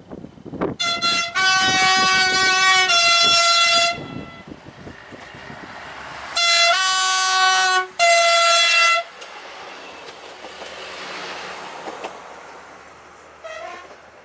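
SNCF X 73500 diesel railcar sounding its two-tone horn twice, each time stepping down from a higher note to a lower one: a long sounding about a second in and a second one about six seconds in. After the horn, the railcar runs past with a rising and fading rumble of engine and wheels on the rails.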